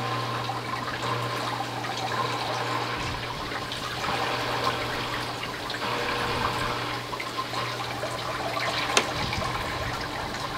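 Water trickling and splashing steadily in a fish tank, with one sharp click near the end.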